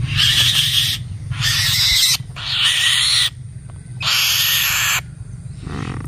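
Black-winged kite giving harsh, rasping screeches: four calls of about a second each, then a fainter one near the end.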